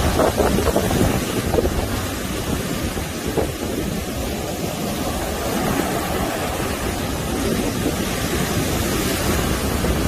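Heavy sea surf breaking and washing up a sandy beach in a continuous rushing noise, a little louder in the first second. Wind buffets the microphone throughout.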